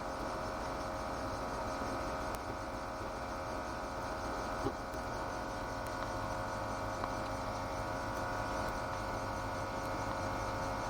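Ford GT40's V8 engine idling steadily while the car stands still, a constant hum with no revving.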